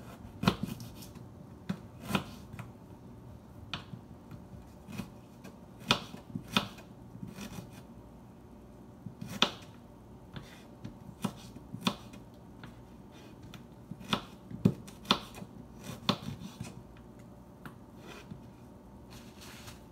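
Kitchen knife slicing fresh ginger root on a wooden cutting board: irregular sharp knocks as the blade comes down through the ginger onto the board, about one every second, some louder than others.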